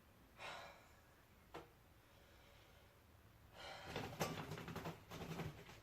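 Faint rustling and handling noise with a few light clicks and knocks, busiest in the second half, as someone moves things about while searching.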